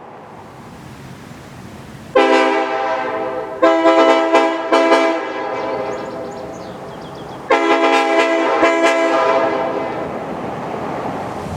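Multi-chime locomotive air horn sounding a chord in two sets of blasts. The first comes about two seconds in, held and then re-sounded with several short stabs. The second comes about halfway through, again with quick stabs, and each set trails off.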